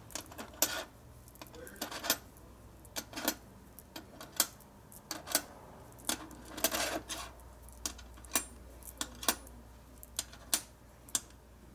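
Small oversize steel bearing rollers clicking one by one into a wheel-hub roller-bearing cage, with light clinks of loose rollers against each other and the steel bench. The sharp metal clicks come at irregular intervals, about one or two a second.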